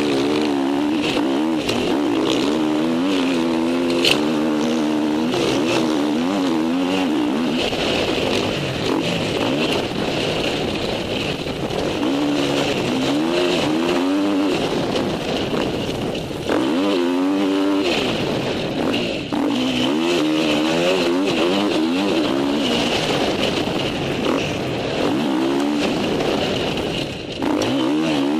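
Motocross bike engine heard close up from a camera on the bike, revving up and dropping back again and again as the rider works the throttle, with a sharp knock about four seconds in.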